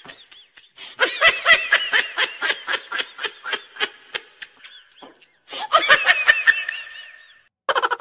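High-pitched giggling laughter in quick repeated 'ha' pulses. There is a long run from about a second in, a second run shortly after the middle, and a fresh burst right at the end.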